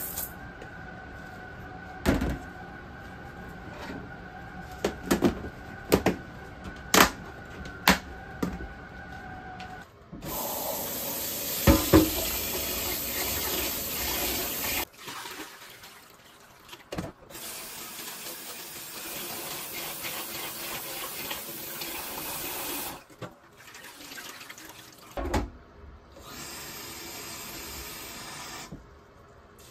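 A series of knocks and clatters as rice is scooped with a plastic cup into a rice cooker's inner pot. Then a kitchen tap runs into a stainless steel sink as the rice is washed in the pot, with a few knocks of the pot, and near the end the tap runs again to fill a cup.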